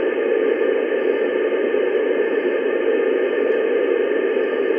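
Steady FM static hiss from an Icom IC-9700 transceiver on the ISS repeater's UHF downlink, with no voice on the channel.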